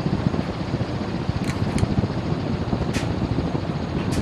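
Dayton commercial leading-edge ceiling fan running at speed, its airflow buffeting the microphone as a steady rumble, with three sharp clicks spread through it.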